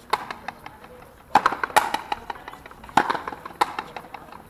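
Frontenis rally: a rubber ball struck by rackets and bouncing off the front wall and floor, about five sharp cracks that echo around the fronton.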